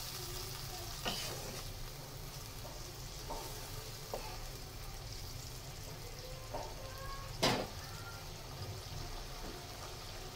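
Hilsa curry in thin mustard gravy sizzling and bubbling gently in a wok, with a wooden spatula giving a few light clicks against the pan early on. A single sharp knock about seven and a half seconds in is the loudest sound.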